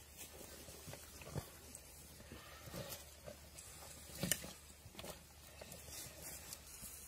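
Komodo dragons tearing at a deer carcass: scattered crunches, knocks and rustles of dry leaf litter as they pull at it, the loudest sharp crack about four seconds in.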